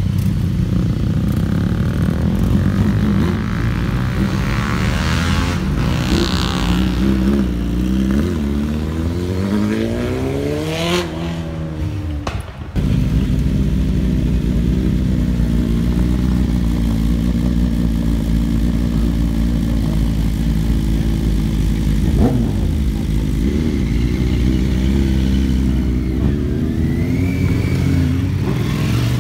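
Several motorcycle engines: bikes pulling away and riding past, their pitch rising and falling, then, after an abrupt break about halfway, sports bikes idling with a couple of short throttle blips.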